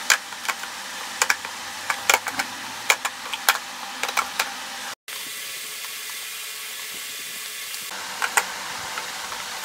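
Skincare bottles and jars being set down and moved around in a drawer: a quick run of light clicks and taps for the first four and a half seconds, then steady hiss with two more clicks near the end.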